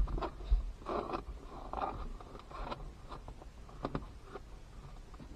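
Irregular scraping, rustling and light clicks of hands working a dash cam's power cable into place along the car's interior, with two low thumps at the start and a sharp click about four seconds in.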